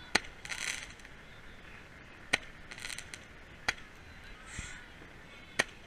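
Four sharp pops, about one and a half to two seconds apart, most followed shortly by a brief hiss.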